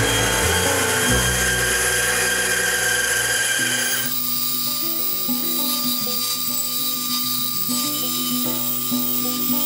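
Band saw cutting along a wooden axe-handle blank, a high whine with a dense hiss over background music; the saw sound cuts off about four seconds in, leaving only the music.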